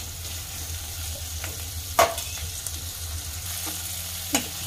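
Sliced onions sizzling in hot oil in a steel kadhai as a spatula stirs them, with a sharp knock of the spatula against the pan about two seconds in and another near the end. The onions are being fried until they soften and turn translucent.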